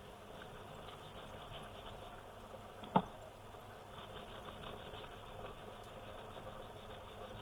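Faint small clicks and plastic handling noises from work on a Keychron mechanical keyboard, with one sharper click about three seconds in.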